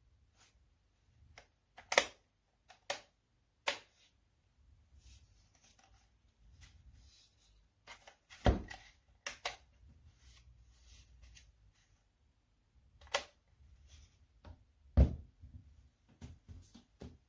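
A string of separate sharp clicks and knocks, the loudest about two seconds in, halfway through and near the end, with fainter ticks between them; no motor is running.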